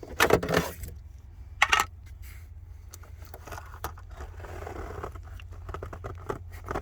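Hands rustling, scraping and crinkling in a car's cabin air filter housing, where mouse nests sit. A few sharp scrapes come in the first two seconds, then softer rustling and small clicks.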